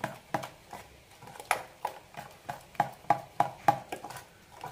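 Spoon stirring thick unniyappam batter of ground rice, jaggery syrup and jackfruit in a metal pot, in quick repeated strokes of about three a second.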